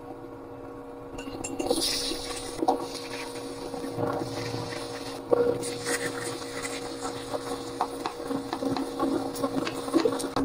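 Oil sizzling in a non-stick frying pan as spoonfuls of grated-carrot batter fry, starting about a second in. A metal spoon clinks and scrapes against the pan now and then, over a steady low hum.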